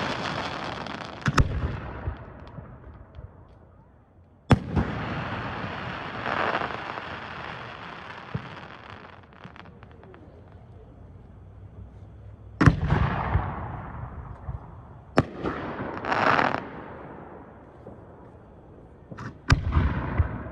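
Aerial fireworks shells bursting with sharp bangs, about six in all at irregular intervals, each followed by a long fading crackle.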